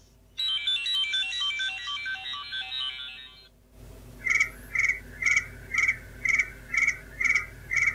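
A cheap iPhone 3G clone's phone speaker plays ringtone previews. First comes a MIDI melody of quick notes that cuts off after about three seconds, then a different ringtone of short repeated pulses, about two a second.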